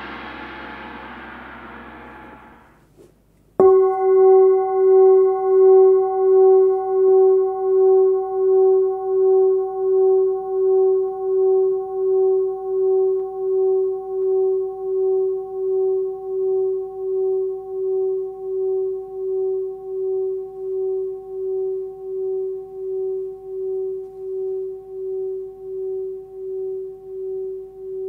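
Forged Sun Moon singing bowl tuned to about 380 Hz (F sharp), struck once a few seconds in and left to ring: a long, clear tone with fainter higher overtones that wavers in a slow pulse, a little more than once a second, and fades only slowly. Before the strike, a denser metallic ring dies away.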